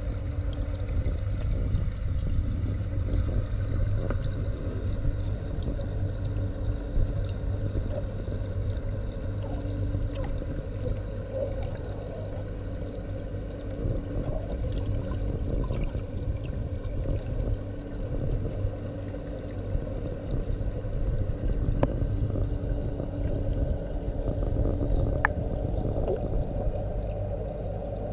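Muffled underwater sound recorded through a phone held beneath the surface: a dense low rumble with a steady hum and a few faint clicks.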